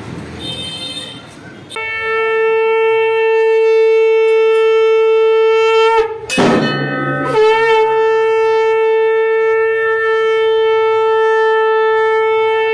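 Conch shell (shankh) blown in two long, steady blasts on one held note, with a brief rough break for breath between them about six seconds in, marking the close of the aarti.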